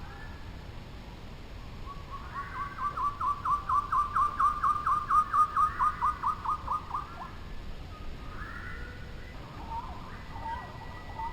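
A songbird calling a long, even series of quick repeated whistled notes, about five a second. The series swells in loudness, then fades and drops slightly in pitch near the end. Fainter scattered bird calls follow.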